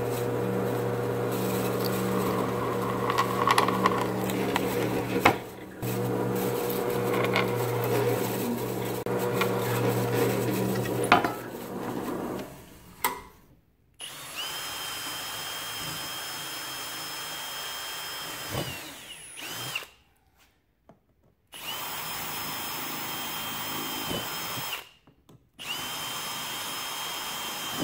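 Benchtop drill press running with a steady motor hum as its bit cuts holes in a metal V-channel track. The hum pauses briefly about five seconds in and stops at about the halfway point. A Milwaukee M18 cordless drill then whines in three runs of a few seconds each, drilling through the track into a plastic toolbox lid.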